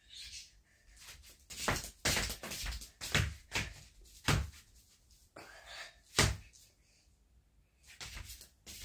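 Feet thudding on a floor: a series of irregular heavy thuds, about eight in all and spaced unevenly, with a little rustle between them.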